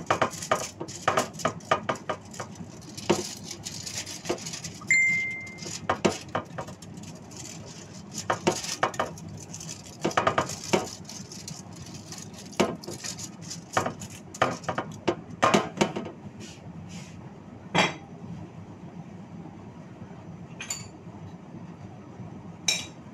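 Kitchen handling sounds: aluminium foil on a baking tray crinkling and utensils and dishes clinking, a quick run of clicks and rustles that thins to a few scattered clinks after about 16 seconds. A short high tone sounds once, about five seconds in.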